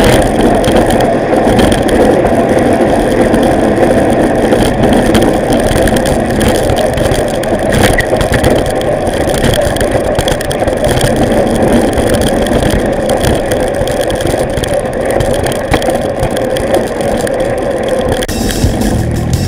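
Loud, steady wind buffeting on the microphone and tyre rumble from a bicycle rolling over cracked, patched asphalt.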